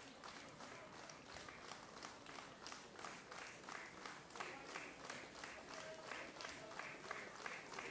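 Audience applauding, the clapping falling into a steady rhythm of about three claps a second.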